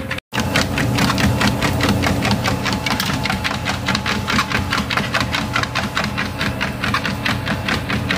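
Motorised treadmill running with a steady motor hum, while a dog's paws strike the moving belt in a quick, even rhythm several times a second. The sound cuts out for an instant just after the start.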